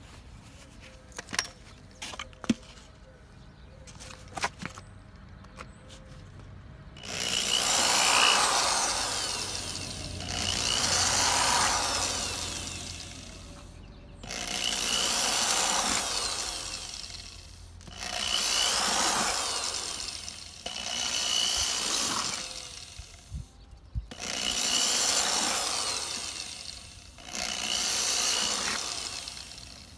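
A tool cutting into a dried gourd shell in a run of repeated passes, each about three seconds long, some carrying a thin high whine. A few light knocks come before the cutting starts.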